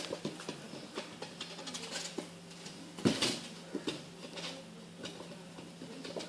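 A puppy scuffling around a balloon: light taps, scuffs and rubbing, with one louder bump about three seconds in.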